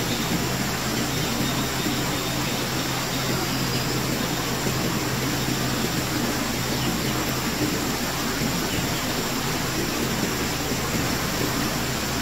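An engine running steadily at an even pitch under a constant rushing noise.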